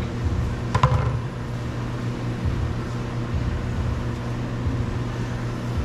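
Steady low mechanical hum, with one sharp click about a second in.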